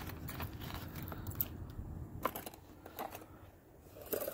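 Costume jewelry (beads, bangles and metal chains) clicking and rattling softly as a hand rummages through a tray of it, in scattered small clicks.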